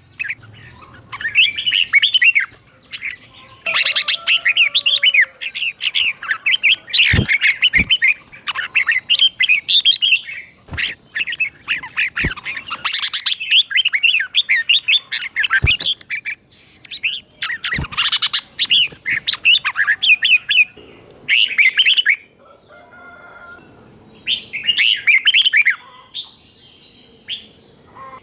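Red-whiskered bulbul singing quick runs of bright chirping phrases with short pauses between them, its phrases doubled. Several sharp clicks are heard among the song.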